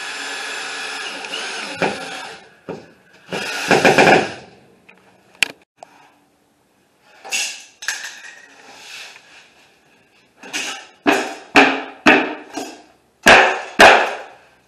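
Cordless DeWalt driver spinning a drywall screw into a wood backing board for about two seconds, then stopping. After that come separate knocks and short, sharp scraping strokes from a sheet of drywall being worked on a tile floor, in a quick run near the end.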